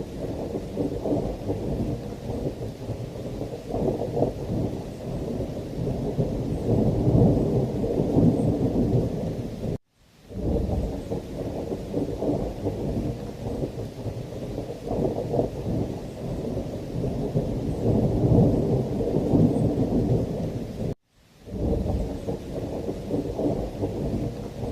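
Thunderstorm ambience: heavy rain with rolling thunder, swelling and easing in deep rumbles. The sound cuts out for a split second about ten seconds in and again near the end, then fades back in, as a short recording loops.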